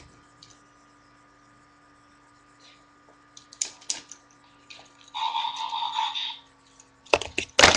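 Plastic action-figure toys being handled: a few light clicks, a hiss lasting about a second and a half, then a burst of rapid clattering near the end as the toys knock together.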